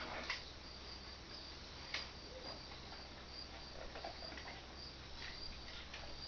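Cricket chirping steadily and faintly, about two short high chirps a second, with a few light knocks.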